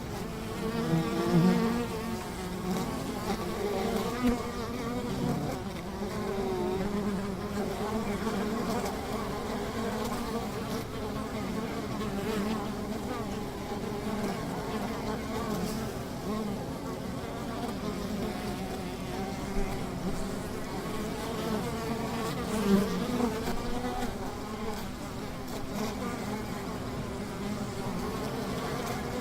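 A large number of bees buzzing together: a dense, continuous hum of many overlapping wavering wingbeat tones, swelling briefly as single bees pass close.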